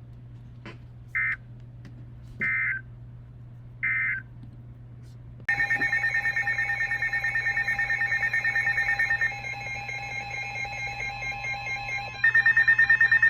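Emergency Alert System tones on a weather radio broadcast. Three short warbling data bursts mark the end of the previous warning message. About five seconds in, a loud, steady electronic alert tone begins; its pattern shifts partway through and becomes a louder, fast-pulsing beep near the end.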